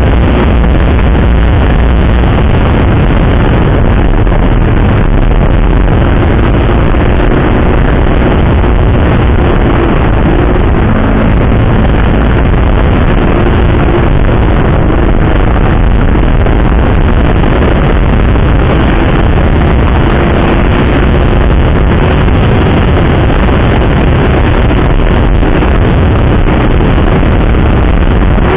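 Yamaha sport motorcycle riding at road speed: wind rushing over the microphone, with the engine's steady note running underneath.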